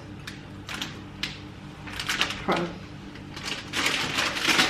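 Irregular light clicks and scrapes of baking utensils working in a mixing bowl, coming thicker toward the end.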